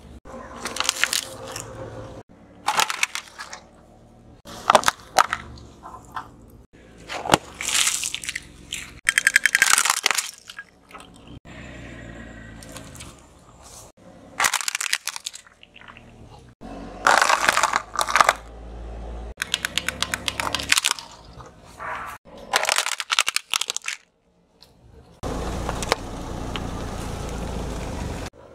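Car tyres rolling over and crushing plastic toys and other small objects, one after another: a string of loud crunching and cracking bursts with quieter gaps between them. Near the end there are a few seconds of steady rushing noise.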